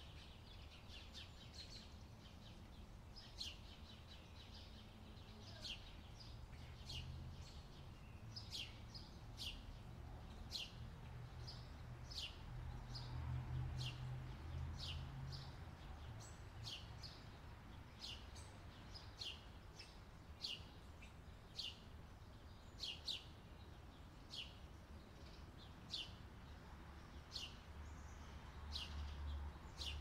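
A small songbird's short, sharp chirps, each falling in pitch, repeated about once a second, over a low rumble that swells around the middle.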